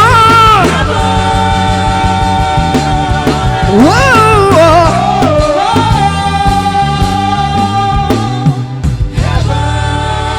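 Live gospel worship music: sustained keyboard chords over a steady bass line, with a singer's wordless voice gliding up and down at the start and again about four seconds in.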